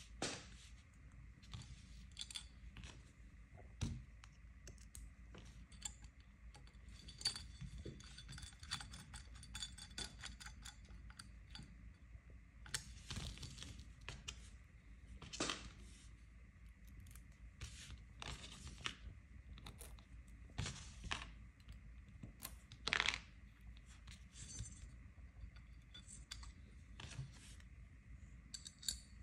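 Metal parts of a crossbow magazine being handled on a cardboard surface: irregular light metallic clicks, taps and short scrapes as the black side plates are picked up, turned over and set down.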